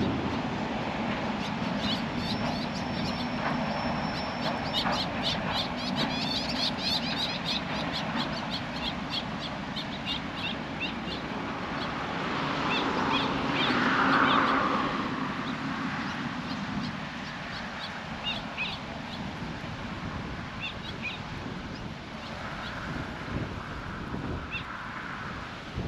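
Birds calling outdoors: a rapid run of short, high chirps repeating several times a second through the first half, with scattered chirps later, over a low steady background noise.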